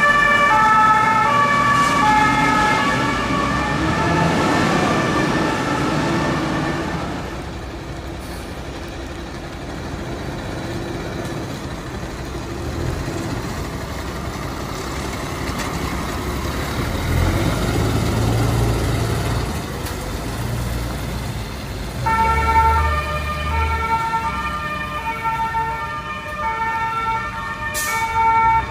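Fire engine siren sounding in stepped, alternating tones, fading away over the first several seconds. Then a turntable ladder fire truck's diesel engine runs, with the rumble swelling about halfway through as the truck pulls off. The siren starts again abruptly about 22 seconds in.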